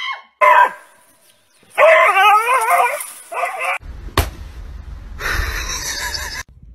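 Flying fox (large fruit bat) giving shrill, wavering squawks in several short bursts. About four seconds in, a single sharp tap follows, with rustling handling noise.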